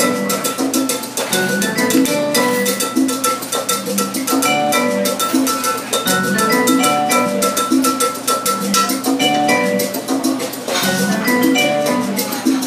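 Live salsa band playing, with timbales and a drum kit keeping a steady, busy beat under a bright melody and a bass line.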